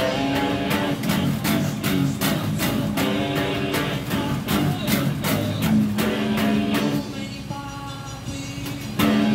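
Electric bass guitar played through a small battery-powered amp: a busy riff of plucked notes with sharp string attacks. The playing eases off for a moment, then a loud note rings out near the end.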